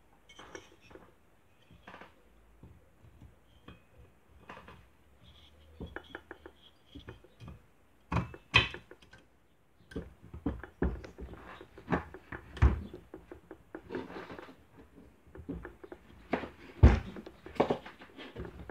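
Irregular clinks, taps and knocks of a finned moped cylinder head being handled and fitted over the cylinder studs onto the engine. They grow louder and more frequent about halfway through.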